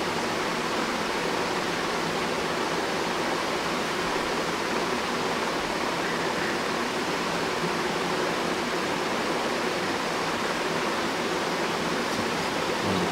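Steady, even hiss of background noise at a constant level, with no distinct events.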